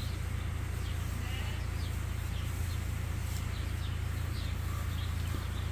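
Steady low hum in a sheep barn, with a faint, brief sheep call about a second in.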